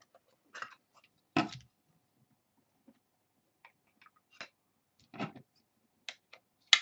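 Trading cards and a plastic card holder being handled: a few separate clicks and light knocks, the loudest about a second and a half in and another near five seconds.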